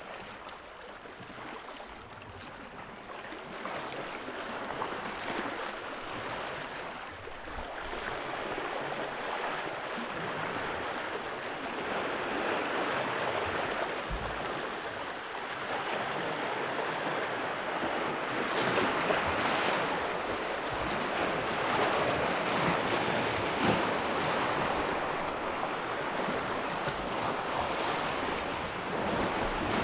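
Sea waves washing and breaking over a rock ledge, foaming and draining back in a continuous surge that grows louder after the first few seconds, with some wind on the microphone.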